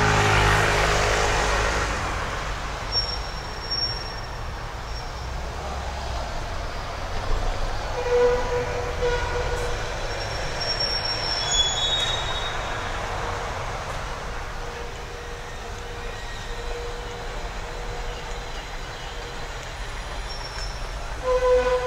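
Busy city street traffic: a heavy vehicle's engine passes close in the first two seconds, then a steady traffic rush with several brief high-pitched squeals, a few seconds apart and again near the end.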